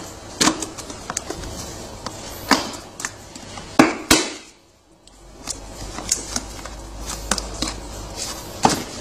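Hard plastic clicking and knocking as a chrome plastic hubcap is handled and pressed into a toy ride-on truck's plastic wheel, with two louder snaps close together about four seconds in as it clips into place.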